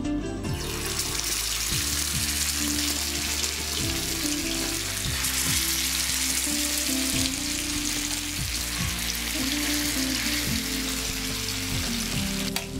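Masala-marinated katla fish pieces frying in shallow oil on a hot tawa: a steady sizzle that starts about half a second in as the fish goes into the oil.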